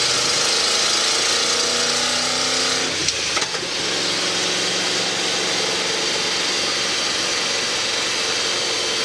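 Ford Boss 302 V8 in a 1976 F100 pickup under acceleration, its pitch rising for about three seconds. About three seconds in it shifts up, then runs steadily at a lower pitch, heard from inside the cab with road and wind noise.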